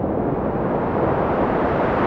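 Ocean surf: a steady rush of breaking waves that swells a little near the end.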